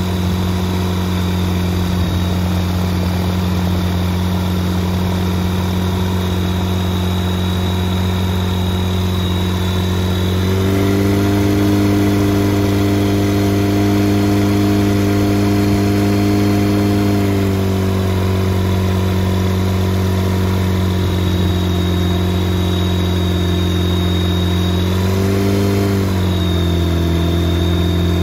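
Rotax 912iS fuel-injected flat-four aircraft engine and its propeller running on the ground at idle. About ten seconds in the engine speed steps up and holds for some seven seconds, then drops back to idle. There is a brief blip of throttle near the end.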